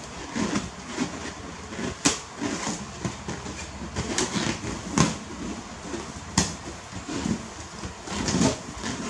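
A monkey's hands and fingers rubbing, scratching and tapping on a rubber balloon in irregular bursts, with three sharp knocks standing out, the first about two seconds in.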